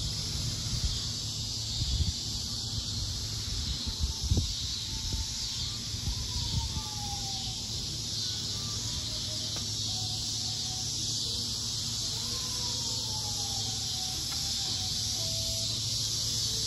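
A steady, high-pitched outdoor hiss, with low wind rumbles on the microphone in the first few seconds and a few faint falling wails near the middle.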